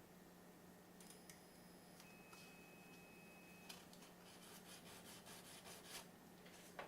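Faint whine of a RepRap Prusa i2 3D printer's stepper motors as the print head moves: a high steady tone for about a second, then a lower steady tone, then a quick run of ticks from short moves, with one sharper tick near the end.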